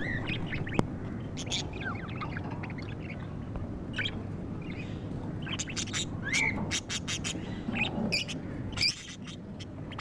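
A group of budgerigars chattering in short, overlapping chirps, warbles and squawks, over a steady low background rumble.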